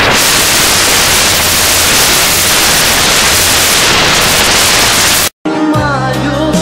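Loud, even static hiss like white noise that cuts off suddenly about five seconds in. After a brief gap, music with a melody starts near the end.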